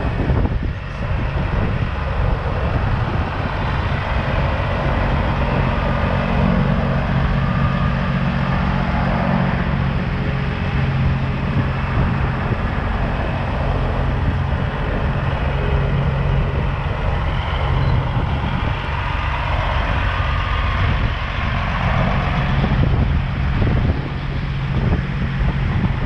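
Semi trucks with tall exhaust stacks rolling past one after another on a gravel road, their diesel engines running with a steady low drone.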